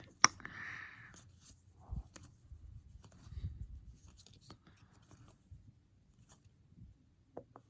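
Baseball cards being flipped through by hand: a sharp snap at the start, a short sliding rasp of card stock, then soft scattered clicks and rustles.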